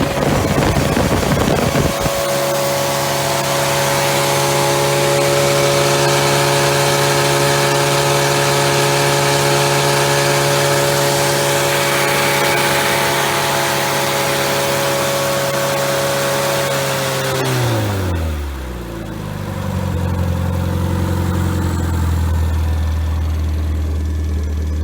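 Rebuilt Triumph Spitfire 1500 inline four-cylinder engine running at a steady raised speed, then dropping back to idle about 18 seconds in and settling into a slow, even idle.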